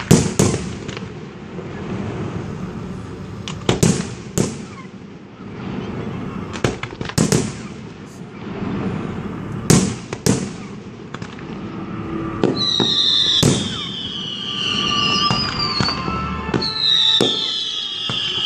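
Fireworks display: aerial shells bursting with sharp bangs every second or two, with crackle between them. In the last third, high whistles falling in pitch come in over the bangs.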